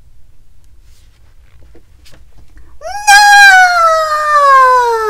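A person's voice yelling one long, drawn-out "Nooooo!" in the pigeon's voice, starting about three seconds in. It begins high and slides steadily down in pitch.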